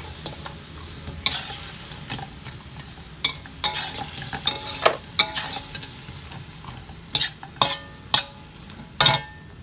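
A spatula scraping and clacking against a wok as it tosses fried pork pieces in sweet and sour sauce, in irregular strokes, a few ringing briefly near the end, over a faint sizzle.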